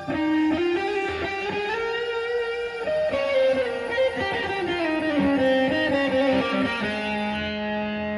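Electric guitar playing a melodic lead line, its notes sliding and bending into one another, ending on a lower held note.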